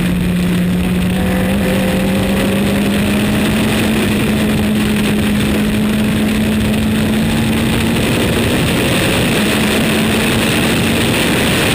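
Formula Renault 2.0 race car's four-cylinder engine heard onboard, running steadily under heavy wind and road noise, its note climbing slowly over several seconds and then holding.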